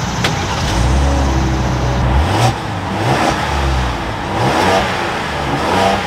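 2025 Ram 1500's 3.0-litre Hurricane twin-turbo inline-six fires up and is revved, its pitch rising about two seconds in, again about five seconds in, and once more near the end. Heard from behind the truck at the exhaust tips.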